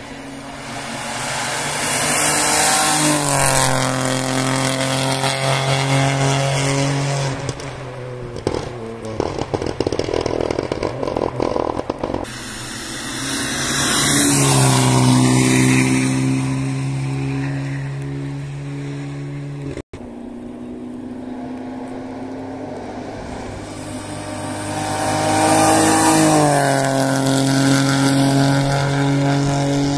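Rally cars passing one after another at speed, each engine swelling in and fading away at high revs, its pitch stepping with quick gear changes. Between the first two passes there is a stretch of irregular crackling.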